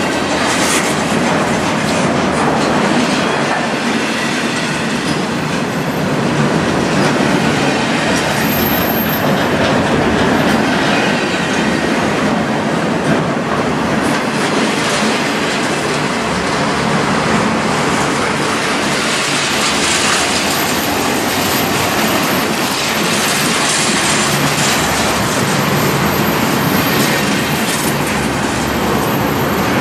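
A train's cars rolling past on the track: a steady, unbroken rumble of steel wheels on rail.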